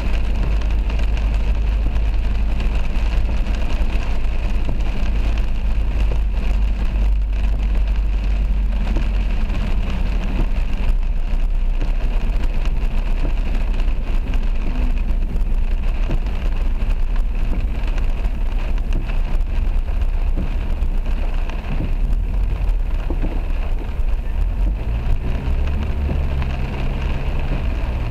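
Heavy rain pelting a car's windscreen and body, heard from inside the cabin over the steady low rumble of the car driving on a wet road.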